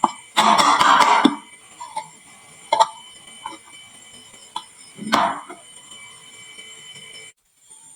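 Marbles clattering on a wooden marble run and into a toy truck: a rattling clatter about half a second in, a single sharp click near the three-second mark, a shorter clatter around five seconds, and scattered light clicks between.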